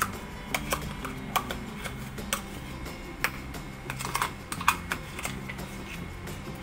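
Irregular sharp crackles and pops, a few a second, from hot ghee in a nonstick kadai as thick mango and milk-powder paste is poured in, over a low steady hum.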